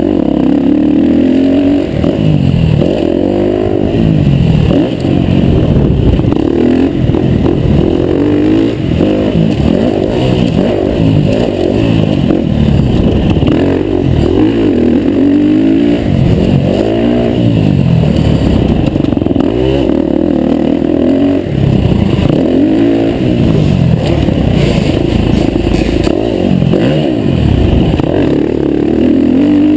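KTM 350 dirt bike engine being ridden hard, its pitch rising under throttle and falling back over and over, every one to three seconds.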